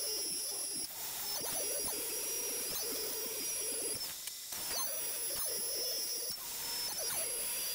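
DeWalt compact router running at full speed, its 3/8-inch roundover bit cutting a rounded-over edge along a walnut cutting board. The high whine holds steady but dips briefly several times as the load on the bit changes, most clearly about four seconds in.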